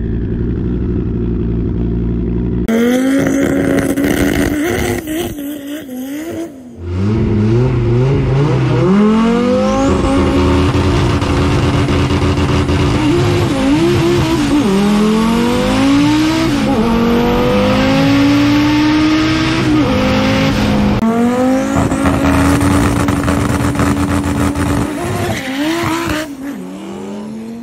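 Audi coupé drag car's engine: idling low at first, then revving hard, its pitch climbing and dropping back again and again, over a loud rush of noise.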